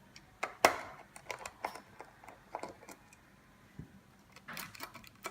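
Irregular light clicks and taps of small screws and plastic parts being handled while a car display unit is taken apart, the sharpest click about two-thirds of a second in and a small flurry near the end.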